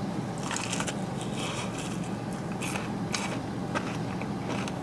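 A person chewing food close to the microphone, with irregular soft crunches and mouth clicks over a steady low background hum.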